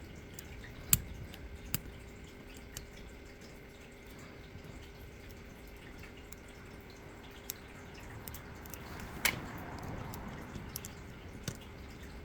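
Small, sharp metallic clicks and ticks from an ASSA D12 lock cylinder being worked with picking tools, scattered irregularly, with two louder clicks about a second in and near nine seconds in, over a faint steady hum.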